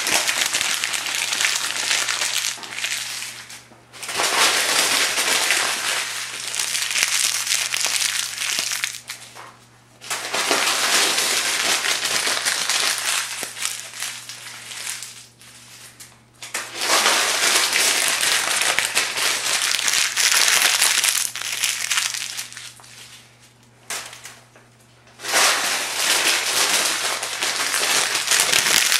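Thin phone book pages crumpled by hand into balls, a dense paper crackle coming in bouts of several seconds with short pauses between.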